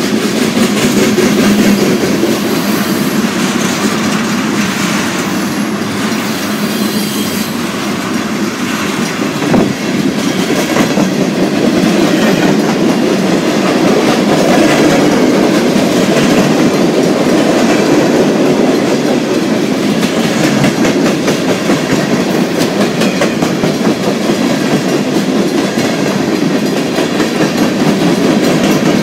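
Freight train of covered hopper cars rolling past close by, its steel wheels clicking steadily over the rail joints, with one sharp knock about ten seconds in.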